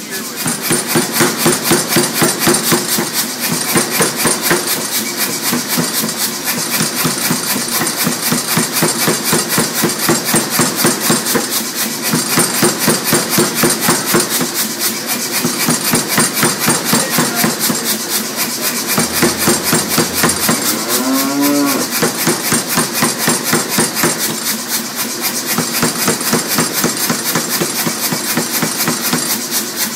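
Power hammer striking a red-hot steel bar with rapid, even blows, several a second, over a steady machine hum. About 21 seconds in, a brief rising wail sounds over it.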